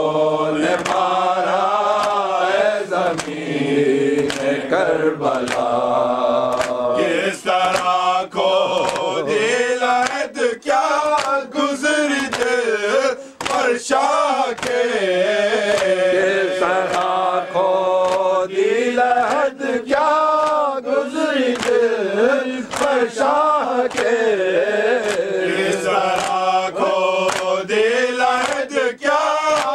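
A group of men singing a Muharram lament (noha) in unison behind a lead reciter. Sharp slaps recur steadily through the singing, typical of chest-beating (matam) in time with the lament.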